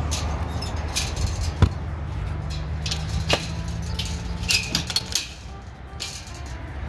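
Padlock and steel gate latch clinking and clicking as the mesh gate is locked, with a run of sharp metal clinks partway through. A low steady hum sits underneath for a couple of seconds in the middle.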